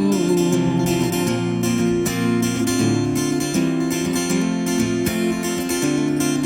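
Acoustic guitar strummed in steady chords, an instrumental passage of the song with no singing.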